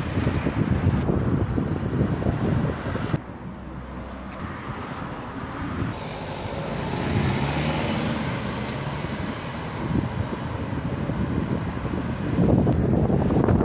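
Road traffic on a town street: cars passing, with wind rumbling heavily on the microphone for the first few seconds and again near the end. A passing car's hiss swells and fades in the quieter middle stretch.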